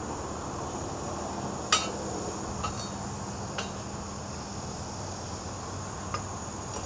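A few light metal clinks, the loudest about a second and a half in, from the crucible rattling in its locked pouring shank as it is handled before the bronze pour. Behind them a steady high chirring of crickets and a low hum.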